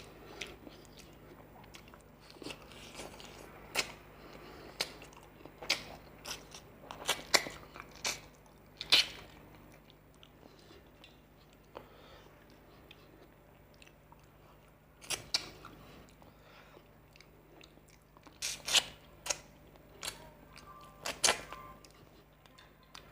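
Close-miked chewing and biting of a handful of rice and fish curry, with sharp crunches and wet mouth clicks scattered irregularly and clustered in bursts.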